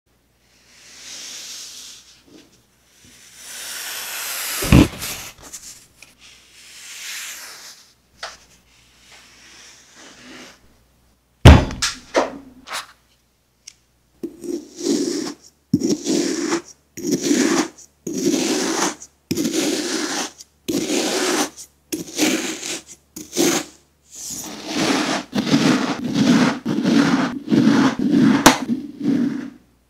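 Kinetic sand being pressed and rubbed by hand, with two sharp thumps, then a plastic knife slicing through packed kinetic sand in repeated strokes. The strokes come about once a second at first and closer together near the end.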